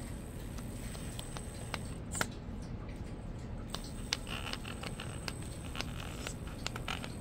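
Faint scattered small clicks and light rustling over a low steady hum, with a few sharper clicks spread through.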